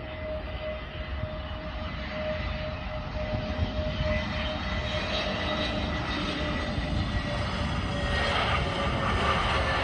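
Airbus A320neo jet engines on final approach: a steady rushing whine that grows louder as the airliner comes low past, the whine slowly dropping in pitch.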